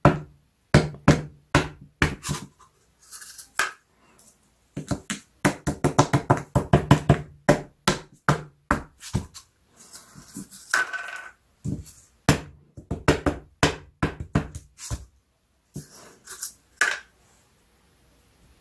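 Quick runs of taps and knocks of paper cups on a wooden board, with a few scrapes, as hardened bath bomb bases are knocked out of their paper-cup moulds.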